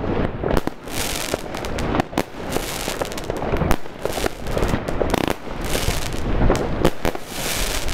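Multi-shot consumer firework cake firing: a rapid, irregular string of launch thumps and bangs, with a crackling fizz from glittering stars between shots.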